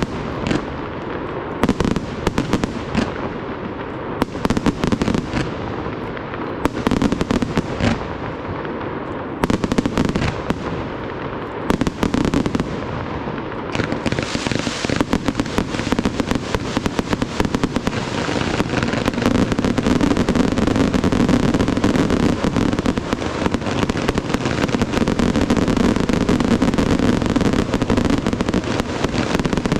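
Fireworks display: for the first half, separate aerial shell bursts, each a sharp bang followed by a rolling echo. From about halfway, a dense, continuous barrage of crackling and banging, louder than before.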